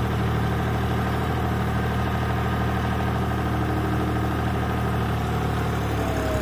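John Deere 5310 tractor's three-cylinder diesel engine running steadily at a constant speed, with a faint whine above the engine note.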